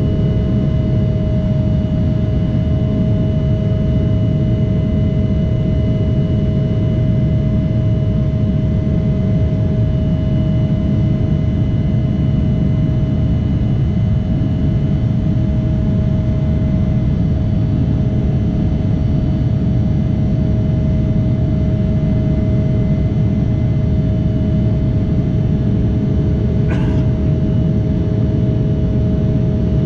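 Steady cabin noise of an Embraer 175 airliner in the climb after takeoff: a dense low rumble of airflow and its GE CF34 turbofan engines, with a steady whine over it. A faint short click near the end.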